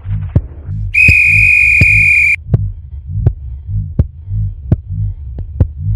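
A single shrill whistle blast, held steady for about a second and a half, over slow, evenly repeating low pulses and sharp ticks about every 0.7 seconds.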